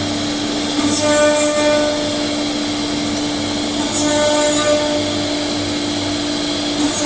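5-axis CNC router trimming the edge of a carbon-fibre part: the spindle runs with a steady whine, and about every three seconds a higher tone with overtones and a hiss comes in for under a second, twice in this stretch.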